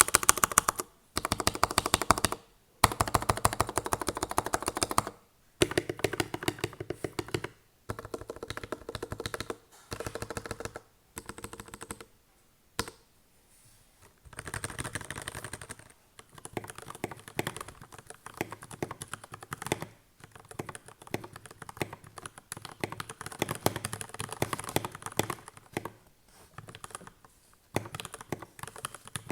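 Custom GK61X mechanical keyboard with lubed Gateron Milky Yellow linear switches being typed on quickly. The keystrokes come in rapid runs with short pauses between them in the first half, then run on almost without a break.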